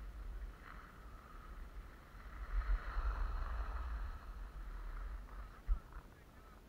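Skis hissing as they slide over snow, with wind buffeting the microphone in a low rumble. The hiss swells about two and a half seconds in, there is a single bump near the end, and then it fades.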